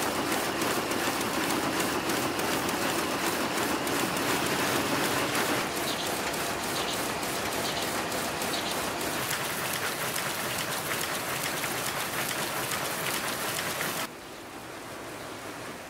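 Textile mill machinery running: a dense, steady clatter with a regular beat. It drops to a quieter hiss about fourteen seconds in.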